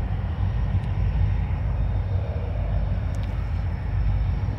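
Steady low rumble of a distant diesel locomotive approaching, with no sudden events.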